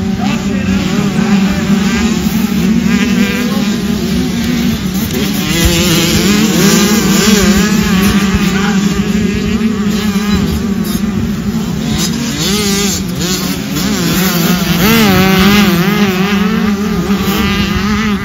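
Several small two-stroke motocross bikes racing, their engines revving up and down and overlapping as they pass.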